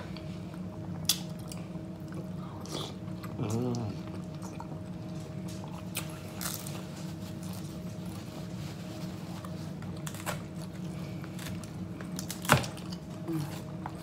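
Close-up eating sounds of soup with crackers: chewing and mouth sounds, with a few sharp clicks of wooden spoons against the bowls, the loudest near the end, over a steady low hum. A short hummed murmur comes about three and a half seconds in.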